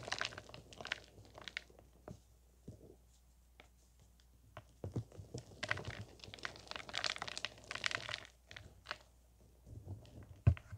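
Hands crushing soft, chalky powder blocks into loose powder, giving crisp crunching and crumbling. It comes in two spells, at the start and from about five to nine seconds in, with a short pause between them and a single thump near the end.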